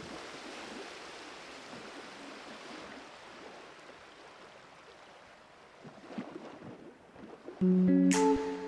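Gentle sea waves washing on the shore, a steady rush that slowly fades. Guitar music starts near the end.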